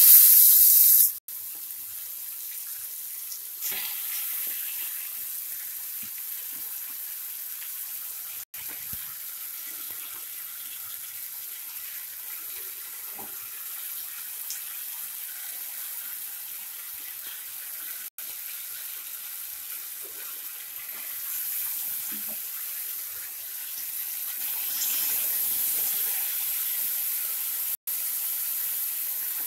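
Hot oil sizzling steadily in a nonstick kadai under a heap of freshly added grated raw mango, frying in the tempering. The steady hiss is louder at the very start and again near the end, and breaks off for an instant a few times.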